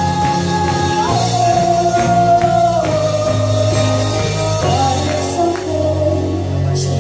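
Live worship band playing: a woman singing long held notes that step downward over keyboard, electric bass and drum kit.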